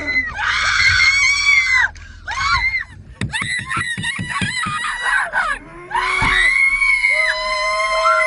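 Several people screaming in terror inside a car, high pitched and overlapping, with short breaks between screams. From about six seconds on, one long held shriek carries on while a second, lower voice screams alongside it.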